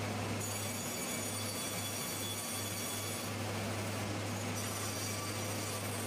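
Sawmill machinery running: a steady low hum with an even rushing noise over it, with no distinct knocks or cuts.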